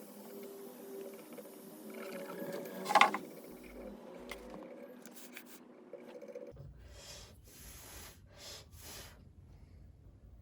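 Faint hum with small handling noises. One sharp click about three seconds in, then a few short scraping strokes near the end.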